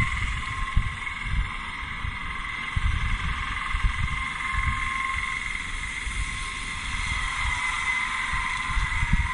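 Outdoor ambience: irregular low rumbling of wind buffeting the microphone over a steady hiss carrying a faint, constant high whine.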